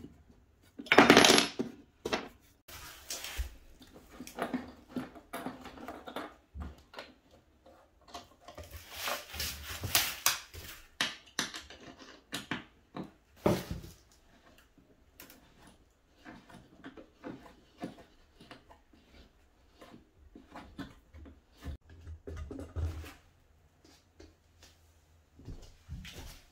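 Metal Allen key clinking and clicking against steel bolts and washers as the bolts are turned into a wooden table leg frame, mixed with knocks of the wooden parts being handled. A loud clatter about a second in is the loudest moment.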